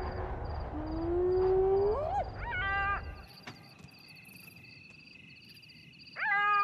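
Spotted hyena whooping: a long call that rises steadily in pitch about a second in, then a shorter, higher, flat call just before three seconds and another near the end. A faint steady high trill runs underneath in the second half.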